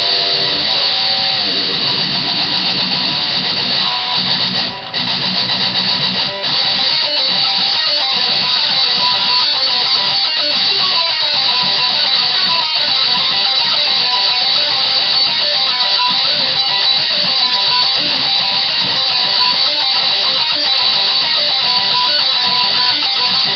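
Electric guitar playing metal riffs. Low chords for the first few seconds, broken by two brief stops, then a fast repeating picked line higher up.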